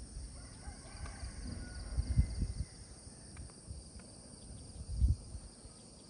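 Steady chorus of insects with a high, even shimmer, and two low muffled thumps about two and five seconds in.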